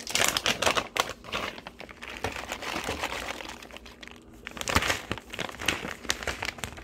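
A plastic bag of cheese crinkling and rustling as it is pulled open and tipped out.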